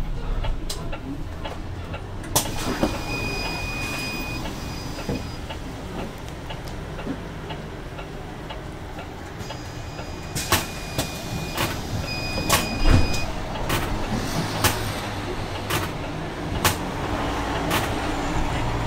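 Zhongtong LCK6113SHEVG city bus running, heard from inside the cabin: a steady low drive hum with frequent knocks and rattles. Broken high-pitched electronic beeping sounds twice, about two seconds in and again about ten seconds in.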